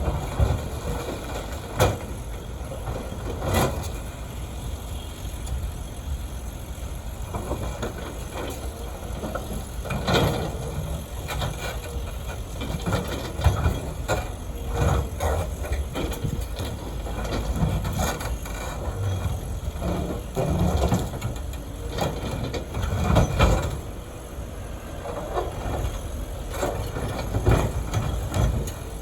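CAT 330F excavator loading aggregate into dump trucks: a steady diesel engine rumble with the crunch and scrape of stone in the bucket and sharp clanks of rock and steel every few seconds.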